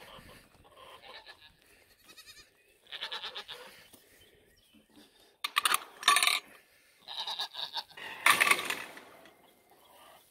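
Goats bleating, a run of separate wavering calls that get louder, the loudest about eight seconds in.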